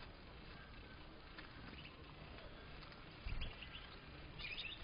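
European goldfinches giving short, faint twittering chirps, with a cluster of calls near the end. A brief low thump about three seconds in is the loudest sound.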